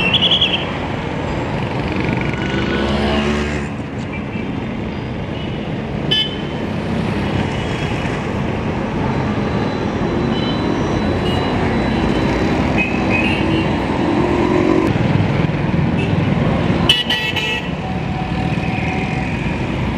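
Busy mixed street traffic: bus, car and motorcycle engines running with a steady rumble, one engine note rising about three seconds in, and several short horn toots, one right at the start and others around six and seventeen seconds in.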